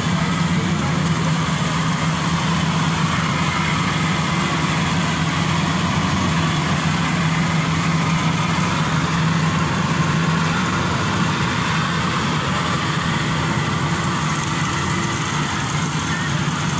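Maxxi Bimo Evo Xtreme rice combine harvester running steadily as it cuts and threshes rice: a continuous engine drone with machinery noise over it.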